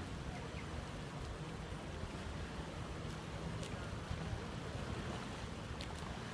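Wind on the microphone: a steady low rumble of outdoor noise, with a few faint ticks.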